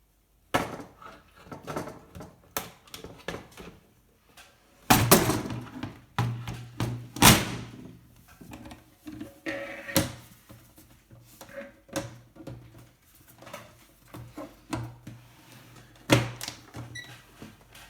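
Olympia SM2 de Luxe portable typewriter being handled: a string of irregular clicks and clunks, with heavier thunks about five, seven and ten seconds in and again near the end.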